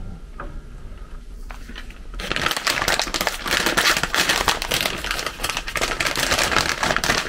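Dense crackling and rustling, like something rubbing against the microphone, starting about two seconds in and continuing to the end. Before it there are only a few light clicks.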